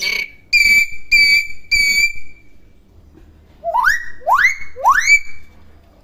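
Hill myna calling: three short calls on one steady pitch, then after a pause three whistles that each sweep upward and level off.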